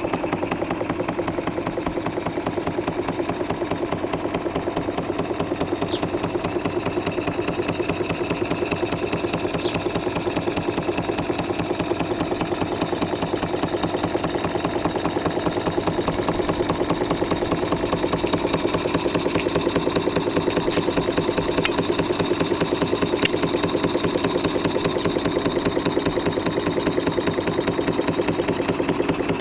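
Stuart Turner 'Victoria' model horizontal steam engine running steadily under steam, with a rapid, even beat from its cylinder and moving parts. A few faint, brief high squeaks come through now and then.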